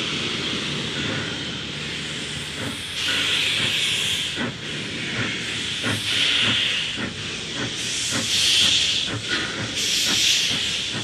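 NSWGR 32 class 4-6-0 steam locomotive working slowly with its cylinder drain cocks open: steam hisses out in surges that swell and fade every couple of seconds, over slow exhaust beats that quicken a little as it gets going.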